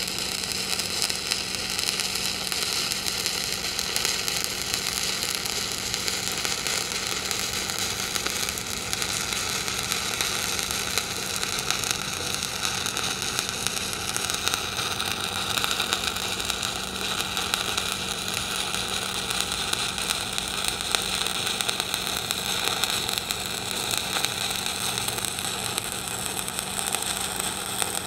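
Stick (shielded metal arc) welding arc crackling steadily through a vertical-up hot pass at about 95 amps, with a steady low hum underneath.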